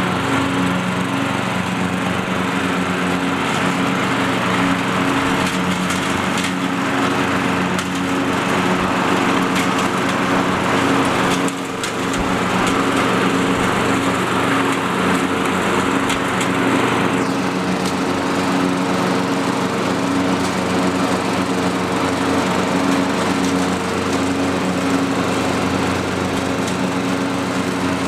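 Engine of an early-1990s Murray riding lawn mower running steadily as the mower is driven, with a brief dip in level about eleven seconds in.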